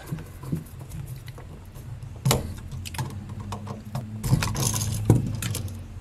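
Screwdriver tightening the hot-side terminal screws of a duplex outlet, with the outlet and its wires handled: scattered small metal-and-plastic clicks and scrapes, two sharper clicks, over a low steady hum.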